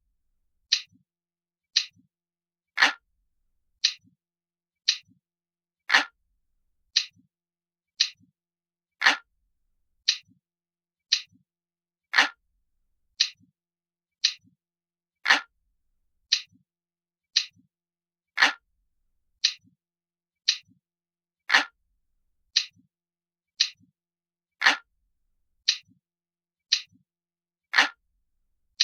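Analog clock ticking, a realistic looped tick-tock at about one tick a second, with every third tick fuller and louder.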